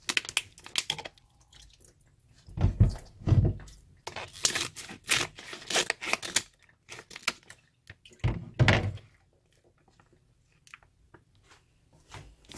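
Scissors snipping open a wet plastic food pouch, with crackling and crinkling of the plastic as it is handled. Dull thumps come about three seconds in and again after eight seconds, where the frozen pouch is knocked or set down.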